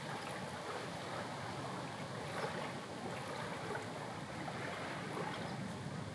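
Calm sea water lapping gently, a steady wash with small splashes and ticks of water.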